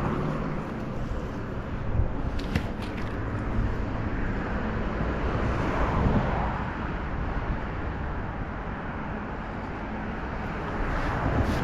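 Steady outdoor background noise with slow swells, like cars passing on a nearby road, and a few short sharp clicks about two and a half seconds in.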